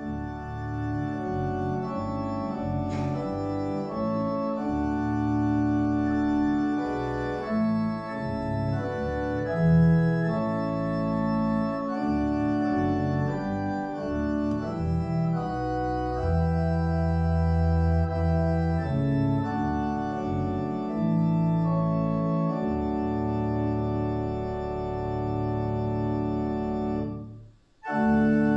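Church organ playing a hymn tune in slow, held chords that change every second or two. Near the end it breaks off briefly between phrases and then starts again.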